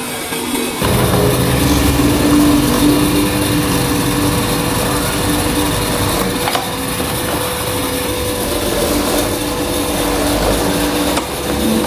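Electric hollow-chisel mortising machine running: a steady motor hum, with the spinning bit and chisel boring into a wooden beam from about a second in.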